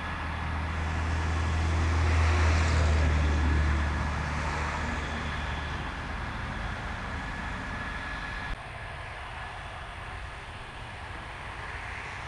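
F-16 fighter jets taxiing past at low power, their jet engines giving a steady rumble with a high whine. The rumble swells to its loudest about two to four seconds in, then eases. The sound drops suddenly about eight and a half seconds in, and the whine cuts out.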